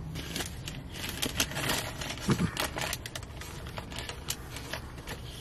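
Paper burger wrapper crinkling and rustling as it is unfolded and handled, a dense run of crackles about one to three seconds in, then fewer.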